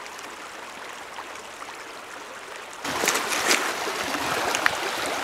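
Shallow creek running over stones, a steady rush of water. About three seconds in it turns louder and closer, with small splashes as hands dip into the water at the edge.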